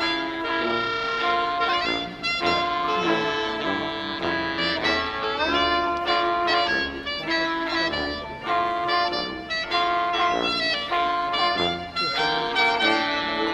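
High school marching band playing, brass to the fore, with held chords over drum hits and a rising glide in the horns about five and a half seconds in.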